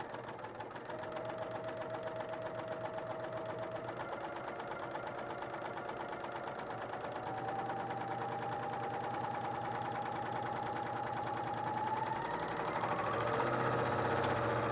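BERNINA serger (overlock machine) running steadily as it stitches piping onto a fabric panel through a piping foot. Its motor whine steps up in pitch about halfway through and again near the end as the machine sews faster.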